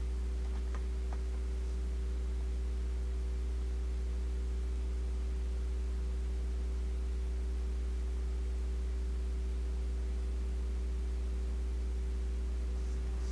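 Steady electrical hum with a faint hiss underneath, and two faint clicks about a second in.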